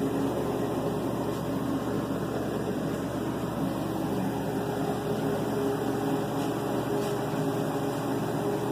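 A steady machine hum, even in level throughout, with a faint low drone in it.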